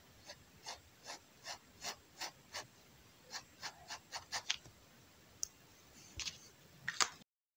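Fineliner pen hatching on kraft paper: short pen strokes about two and a half a second, quickening around four seconds in. A few scattered strokes follow, then the sound cuts out abruptly near the end.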